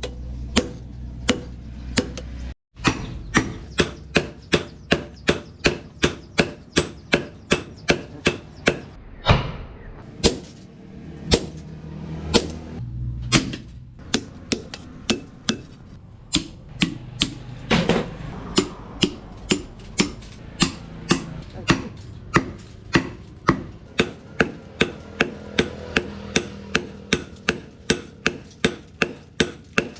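Hammer blows on leaf-spring steel at the anvil during forging, a steady train of sharp metallic strikes about two a second, with brief pauses between runs.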